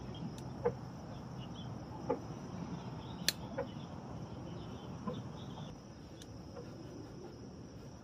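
A piece of cardboard being handled and lit to make smoke: a few scattered faint clicks and crackles, the sharpest about three seconds in, over a quiet outdoor background with a thin steady high hiss.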